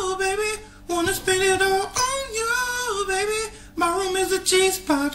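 A man singing unaccompanied in a high voice, holding wavering notes in phrases that break off twice for a moment.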